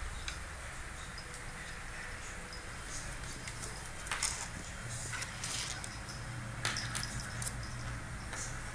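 An Irish Setter puppy tussling with a larger dog lying on a wooden floor: scattered small clicks and scuffs, the sharpest about four and seven seconds in, over a low steady hum.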